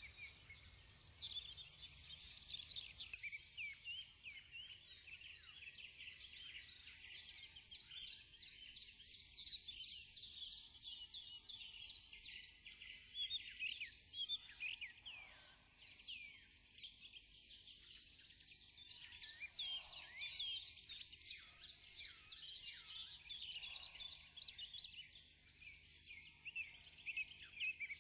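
A dense chorus of many small birds chirping and twittering, a continuous stream of quick, high calls, many of them short falling notes.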